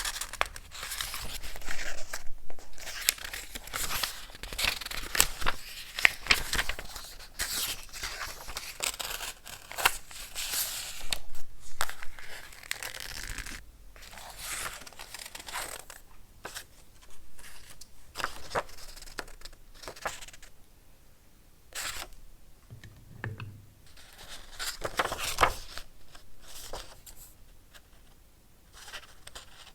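Paper being torn and crinkled by hand in a string of crackly rips and rustles, dense for the first half and then coming as sparser, separate strokes.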